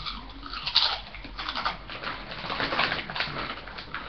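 Crunching and chewing a Doritos Jacked Chipotle BBQ tortilla chip: a string of irregular, crisp crackles.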